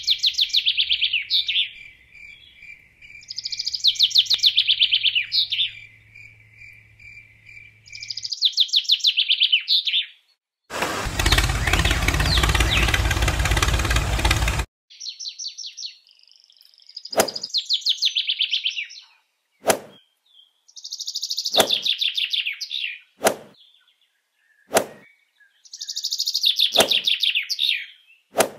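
Songbird singing short, rapid trilled phrases that repeat every few seconds. Around the middle, a loud burst of noise lasts about four seconds, and a few sharp clicks come between the later phrases.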